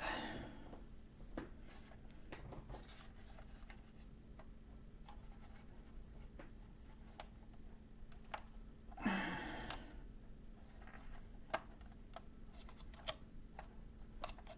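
Faint, scattered clicks and taps of a plastic toy ship and action figure being handled, over a low steady hum, with a soft breath about nine seconds in.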